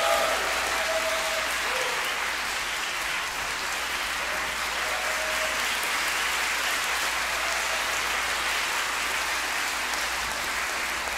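Concert-hall audience applauding steadily after a choir's performance.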